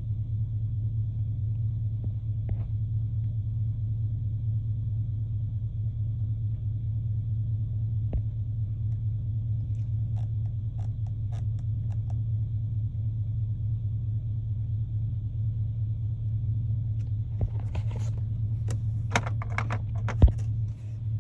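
Pickup truck engine running at a steady idle, a constant low drone. A few clicks and rustles of handling come near the end.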